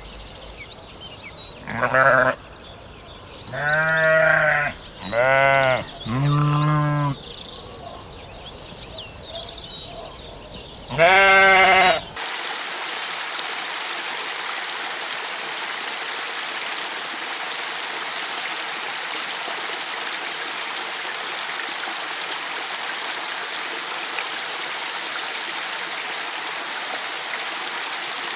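Bleating livestock, sheep or goats, giving five short wavering bleats over the first twelve seconds. The sound cuts off suddenly to the steady rush of running water, like a stream.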